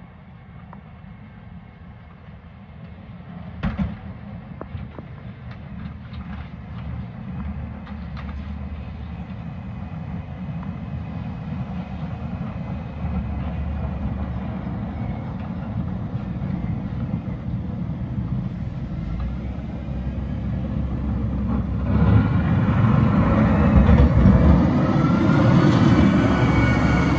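Caterpillar 950M wheel loader's diesel engine running as it plows snow, growing louder as it comes closer, with a few sharp knocks a few seconds in. Near the end it is louder still, with a rising whine over the engine.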